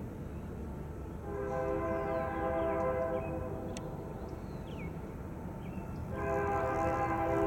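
Diesel freight locomotive's multi-chime air horn sounding from the approaching train: a blast of about two seconds beginning about a second in, and a second blast starting about six seconds in, over a low rumble.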